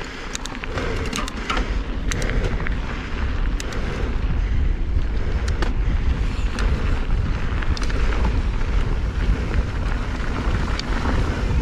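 Mountain bike riding fast along a dirt and gravel singletrack: wind buffeting the microphone as a steady low rumble, knobby tyres rolling over the dirt, and scattered sharp clicks and rattles from the bike.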